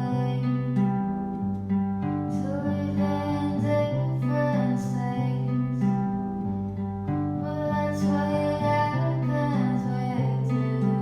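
Background music led by guitar over a steady, changing bass line.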